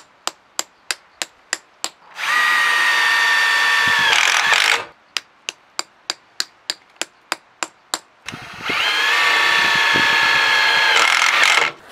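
Sharp metal taps on the tip of a Phillips driver bit, about four a second, from hammering the bit for a strength test, alternating with an impact driver running as it drives a screw. The pattern goes twice: about two seconds of taps, then the driver runs for about two and a half seconds; more taps for about three seconds, then the driver runs again for nearly three seconds.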